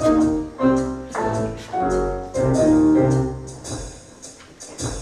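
Piano-led instrumental backing music with no voice, playing a rhythmic phrase of struck notes and growing softer near the end.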